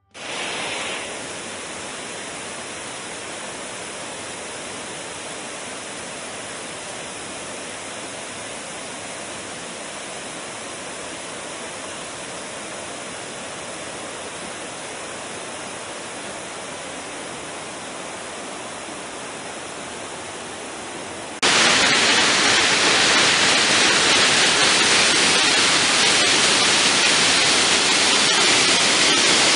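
Waterfall rushing: a steady, even sound of falling water. About two-thirds of the way in it suddenly gets louder, as from a closer or bigger fall.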